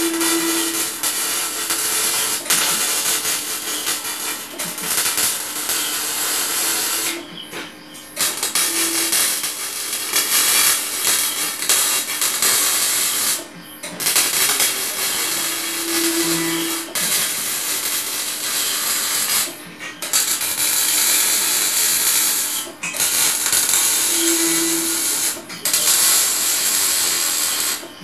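Electric arc welding on a metal chair frame: the arc's steady crackling hiss, breaking off briefly about five times as the welder stops and strikes again, over a faint steady hum.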